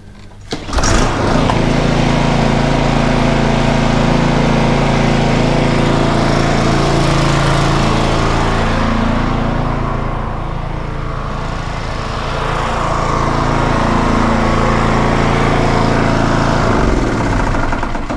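Toro TimeMaster walk-behind mower's Briggs & Stratton engine running steadily on fresh oil, run to check the oil level and look for leaks. It cuts off near the end.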